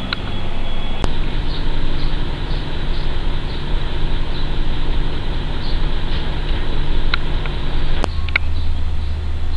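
A steady mechanical hum with a low droning pitch, like a running or idling vehicle. It changes abruptly about a second in, and near the end a deeper, louder hum takes over.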